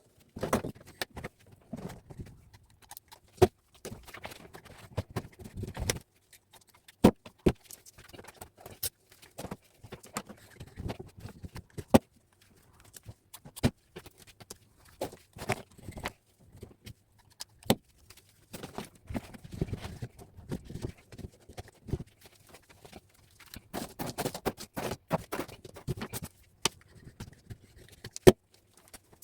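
Insulated copper wire being stripped by hand: scraping and rustling of the insulation, broken by sharp, irregular metallic clicks and clinks of the wire and tools.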